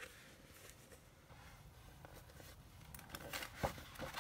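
Sheets of double-sided patterned scrapbook paper being turned over in a paper pad by hand: soft rustling and sliding of paper, with a few light taps, and one sharp knock at the very end.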